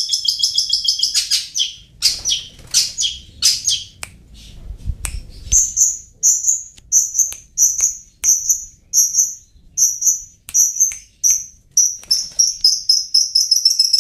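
Long-tailed shrike (cendet) singing. It opens with a fast, harsh chattering run and a few scratchy calls, then gives a string of short, clear, high notes repeated nearly twice a second, and breaks into a rapid run again near the end.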